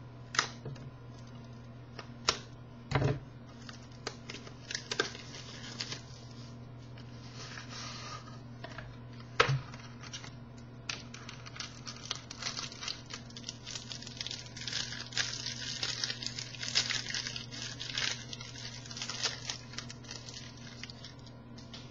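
A sealed football card box being opened: plastic wrapping torn and crinkled, with a few sharp snaps and taps in the first half and steady crinkling through most of the second half.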